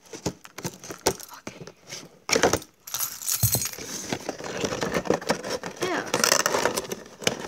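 Keys jangling on a keyring as a key is worked at the tape of a cardboard action-figure box, then the box flap being pulled open and the packaging handled with scraping and rustling.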